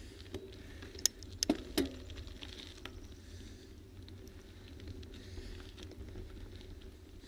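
Steady low rumble of movement and wind on a camera carried along a rough paved lane, with a few sharp clicks and rattles between about one and two seconds in.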